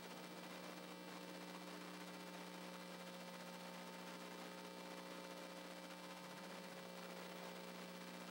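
Faint steady electrical mains hum with light hiss: one low tone with a few fainter higher tones above it.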